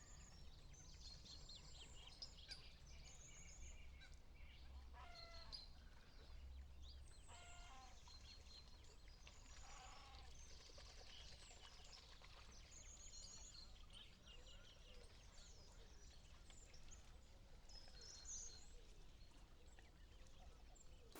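Faint birdsong: many small birds chirping and trilling, with three lower calls that fall in pitch at about five, seven and ten seconds in. A low steady rumble lies underneath.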